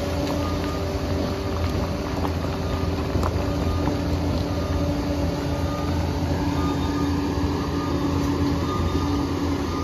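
Liebherr PR 746 crawler bulldozer working: its diesel engine runs with a steady low drone. Held whining tones come and go over it.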